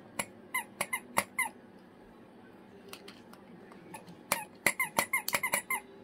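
A squeaky toy is squeezed in short runs as a cockatoo bites it. There are about five squeaks in the first second and a half, then a quicker run of about eight near the end.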